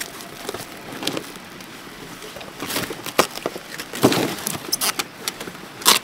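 Clear plastic stretch film crackling and crinkling as it is pulled off a hand roll and wrapped tight around a cardboard box. It is fairly quiet at first, then comes as a run of irregular sharp crackles through the second half.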